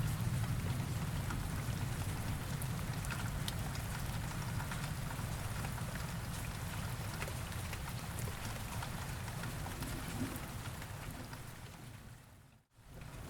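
Steady rain falling, a dense hiss with scattered drop ticks over a low rumble that eases off after the start. Near the end it fades down to a moment of silence and then comes back.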